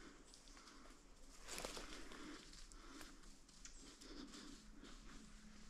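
Near silence, with faint rustling of steps through dry grass and fallen leaves, a little louder about a second and a half in.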